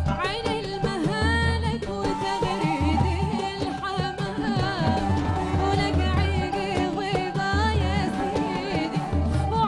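A woman singing an Arabic song live, her voice wavering with vibrato, accompanied by an oud and a low beat that comes about every 1.2 seconds.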